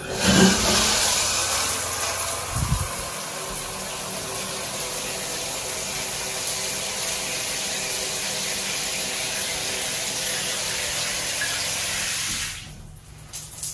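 Shower running from a freshly rebuilt 40-year-old Delta single-handle shower valve, a steady spraying hiss from the shower head as the valve is test-run for leaks. The water starts as the handle is turned on and stops about twelve seconds in.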